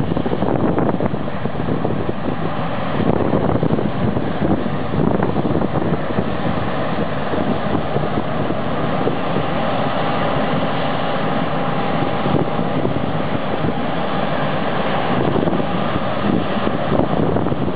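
Combine harvester running steadily while harvesting wheat, its engine and threshing machinery making a dense, even noise, with wind buffeting the microphone.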